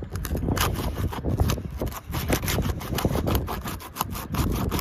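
Asphalt roof shingle being pried loose from its sealant strip: a dense run of crackling, scraping clicks over a low rumble.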